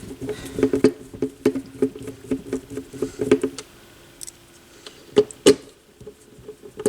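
Irregular small clicks and taps of hands working on turntable parts, with a faint hum that comes and goes, and two sharper knocks about five seconds in.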